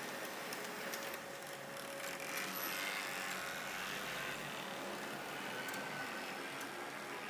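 H0-scale model streetcars running on the layout: a steady whirr of their small electric motors and gearing, with a few light clicks from wheels on the track.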